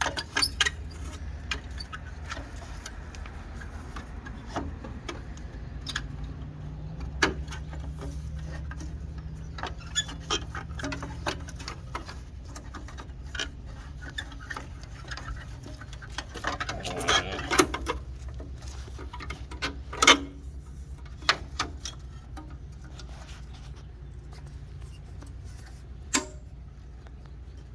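Scattered clicks and knocks of headlight and marker-light parts being handled and slid into place, with a short burst of clatter about two-thirds of the way through, over a steady low hum.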